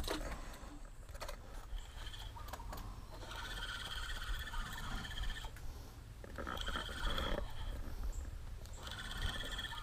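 Wild animal calls: three held, high-pitched calls, the first about two seconds long starting about three seconds in, then shorter ones about six and a half and nine seconds in, over a steady low rumble.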